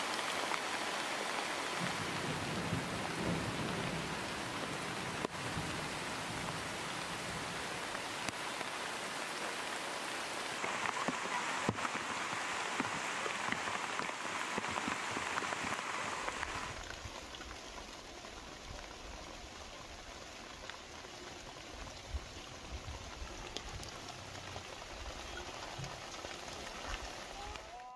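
Rain falling steadily. It grows softer about two-thirds of the way through.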